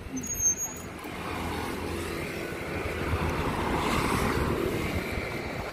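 A motor vehicle engine running as it passes by, growing louder to a peak about four seconds in, then easing off.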